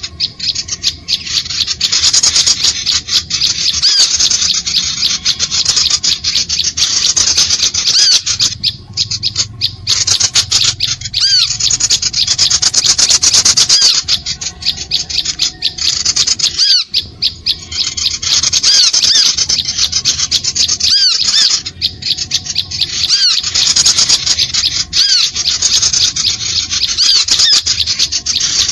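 Bird-lure recording of many small birds: a dense, continuous, high-pitched chatter of chirps and squeaky calls, with a few brief breaks.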